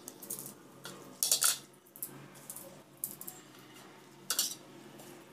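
A kitchen knife scraping and clinking against a plastic plate as roselle calyces are handled and cut, in a few short bursts, the loudest about a second and a half in and again about four and a half seconds in.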